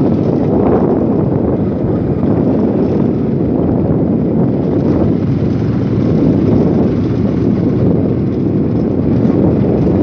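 Motorcycle riding steadily along a gravel dirt road, its engine running under heavy wind buffeting on the microphone.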